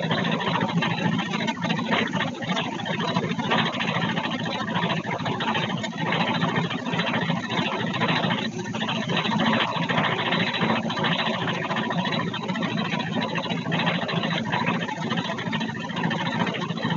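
Drum-type paddy thresher running steadily, a continuous hum with dense rattling as sheaves of rice are held against the spinning drum and the grain is beaten off.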